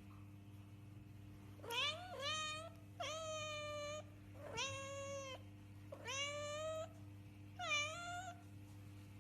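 Domestic cat meowing repeatedly: five drawn-out meows, each under a second long, about one a second, over a faint steady hum.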